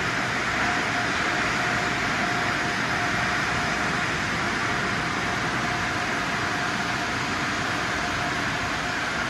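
Car wash dryer blowers running, a steady rush of air with a faint steady whine through it, as they blow water off a car.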